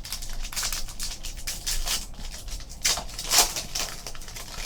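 A trading card pack's foil wrapper being torn open and crinkled, with cards rustling as they are handled: a run of scratchy rustles, with two louder rips about three seconds in.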